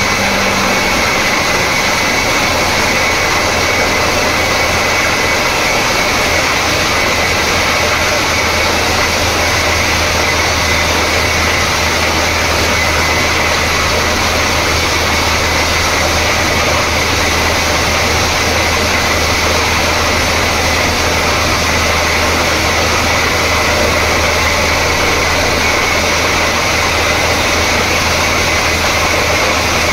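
Borewell drilling rig running steadily: a continuous low engine drone under an even hiss, with no change in pace.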